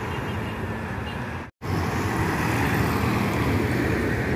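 Road traffic with a car passing, then, after a sudden brief dropout about a second and a half in, bus diesel engines running steadily as the buses pull slowly past close by.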